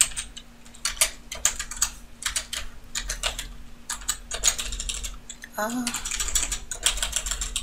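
Computer keyboard being typed on: quick keystrokes and shortcut presses coming in irregular bursts.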